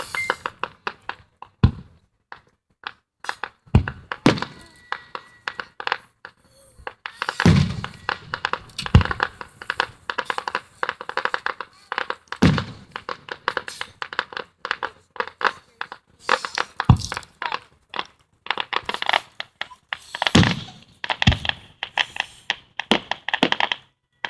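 Aerial fireworks bursting: deep booms of shells every couple of seconds, with dense runs of crackling between them.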